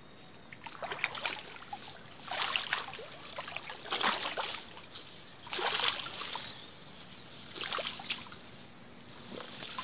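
Splashing in shallow river water, in about six bursts a second or two apart, as a hooked wallago catfish is hauled out of the water by hand.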